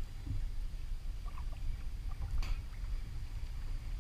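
Low steady rumble of wind and water around a kayak while a spinning reel is cranked to bring in a hooked trout, with a few faint ticks and one short sharp sound about two and a half seconds in.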